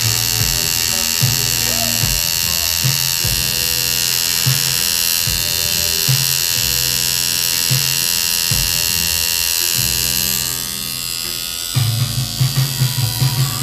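Electric tattoo machine buzzing steadily as the needle works ink into facial skin, over background music. The buzzing stops about ten seconds in, leaving the music with a steady beat.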